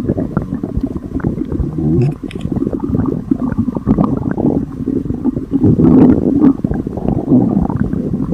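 Upset stomach gurgling and rumbling: a continuous wet churning with small pops and squeaks, loudest about six seconds in.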